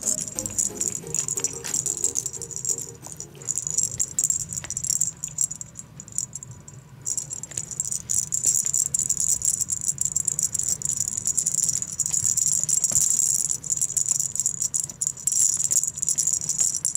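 Background music with a continuous shaker-like rattle.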